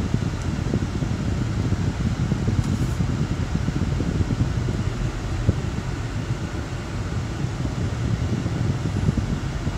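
Steady low rumble inside a car's cabin while it is being driven: road and engine noise.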